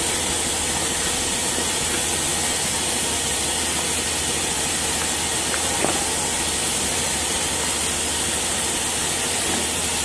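Hot air PVC welder blowing a steady hiss of hot air through its welding nozzle while a PVC sheet is fed under the pressure roller, with a faint low hum underneath and a single light tick about six seconds in.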